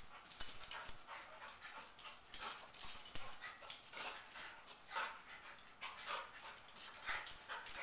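Two dogs play-wrestling, one of them a Shiba Inu: brief, irregular dog noises mixed with claws clicking and scuffling on a tile floor, coming in quick scattered bursts.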